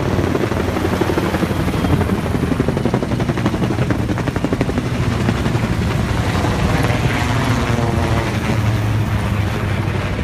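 Formation of military helicopters flying a low pass: the steady, rapid chop of many rotor blades over a continuous engine drone.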